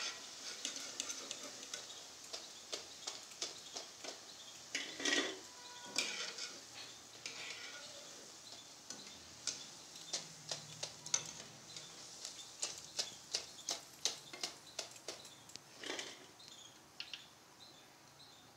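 Steel skimmer clinking and tapping against the rim of a kadhai and a steel plate, many light irregular clicks with a couple of longer scrapes, as fried pakoras are lifted out of the hot oil, drained and tipped onto the plate.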